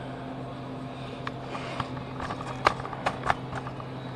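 A run of irregular light knocks and clicks, about a dozen, loudest in the middle, over a steady low electrical hum.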